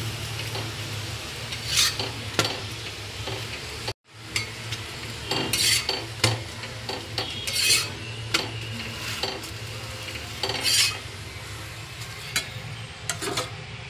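Metal spatula scraping and knocking against an iron tawa as a paratha is turned and lifted off the pan, several irregular scrapes over a steady low hum. The sound drops out briefly about four seconds in.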